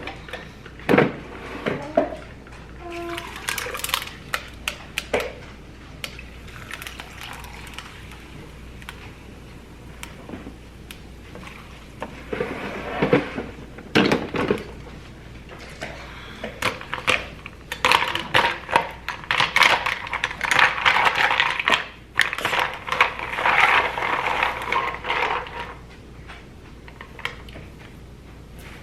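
Dishes and cutlery clattering in a kitchen: irregular clinks and knocks, busier and denser in the second half.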